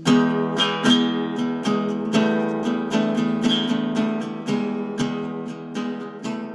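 Music: an acoustic guitar strummed in repeated chords, slowly fading out.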